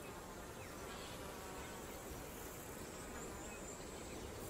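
Faint, steady insect buzzing, like flies, with no distinct calls or impacts.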